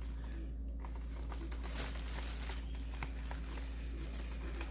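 Faint plastic clicks and rustling as a handheld vacuum's dust bin is handled and its eject button pressed, over a steady low hum.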